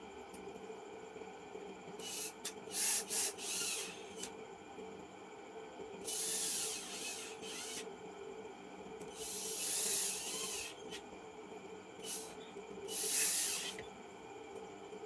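Several short bursts of hissing, scratchy noise, some brief and some lasting a second or two, over a faint steady hum.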